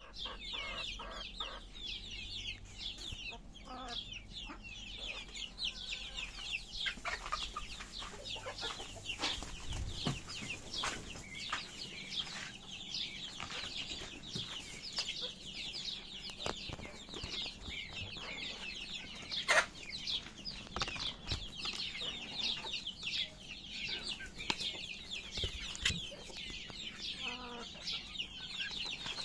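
A flock of chickens clucking and chirping continuously while feeding, with scattered knocks. One sharp knock comes about two-thirds of the way through.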